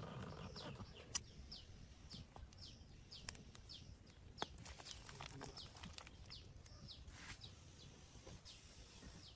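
Faint bird chirps: short, high notes that fall in pitch, repeated about twice a second and thinning out near the end. A few sharp clicks sound over them, the loudest about a second in and again just past four seconds in.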